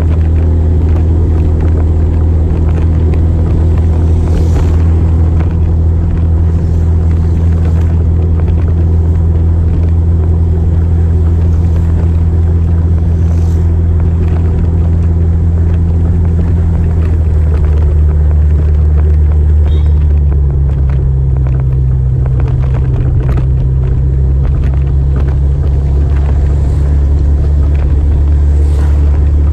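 Motorcycle engine running steadily under way, a loud low drone, its note dropping somewhat about two-thirds of the way through.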